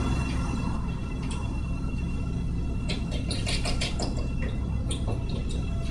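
Quick clusters of small metallic clicks as a nut and washer are handled and threaded by hand onto a carriage bolt, over a steady low background rumble.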